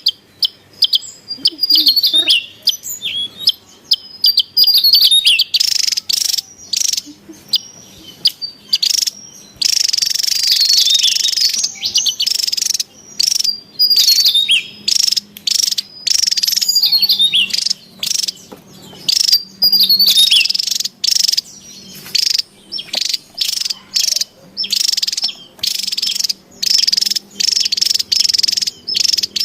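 Javan tesia calling: loud, high chirps and quick sweeping twitters in short bursts, repeated over and over with brief gaps. A hissing, insect-like buzz joins in for a couple of seconds about ten seconds in.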